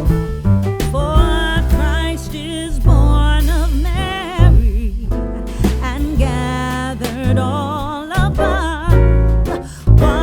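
Background music: a song with a wavering solo vocal line over keyboard and bass accompaniment.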